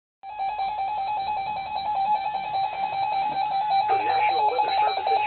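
NOAA Weather Radio alert tone: a single-pitched alarm that pulses rapidly and evenly, starting suddenly just after the start. The broadcast voice reading the warning comes in underneath it about four seconds in.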